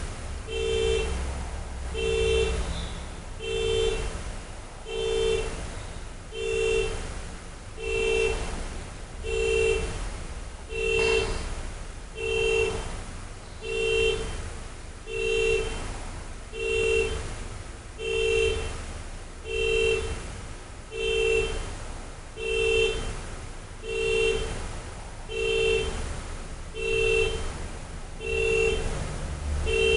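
Car alarm sounding the car's horn over and over: a short blast roughly every one and a half seconds in an unbroken, even rhythm.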